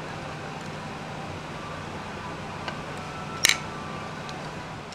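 Steady running hum inside a moving diesel railcar, with a faint click and then a single sharp click about three and a half seconds in.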